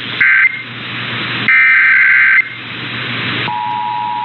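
Emergency Alert System SAME data bursts, two harsh warbling digital squawks, the second about a second long. About 3.5 seconds in, the steady two-tone EAS attention signal starts and holds, warning that an alert message follows. Radio hiss fills the gaps between the bursts.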